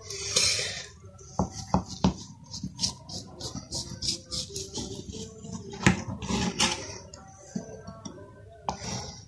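A knife cutting set besan barfi in a wide steel dish, the blade scraping through the sweet and clicking sharply against the metal now and then.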